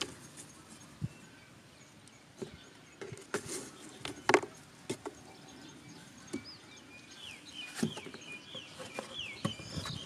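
Cardboard being cut and worked by hand: scattered scrapes and sharp cracks, the loudest about four seconds in. From about seven seconds in, birds chirp in short gliding calls.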